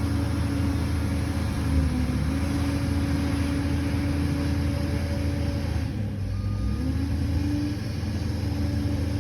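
Liebherr PR 746 crawler bulldozer's diesel engine running steadily, its pitch rising and falling as the revs change, easing briefly about six seconds in. A single short beep sounds just after the dip.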